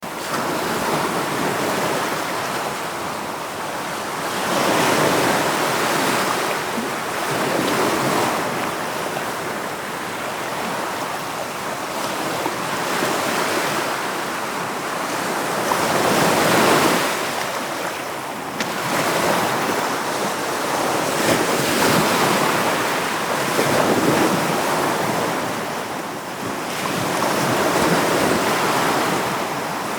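Ocean waves breaking and washing on the shore, the surf swelling and fading every few seconds.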